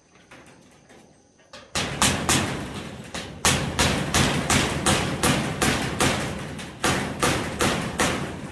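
Hammer blows in a steady rhythm of about three strikes a second, each with a short ring after it, starting about two seconds in after a few faint taps.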